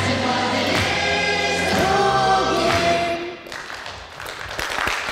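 A choir singing with music, in sustained pitched lines, which stops about three and a half seconds in.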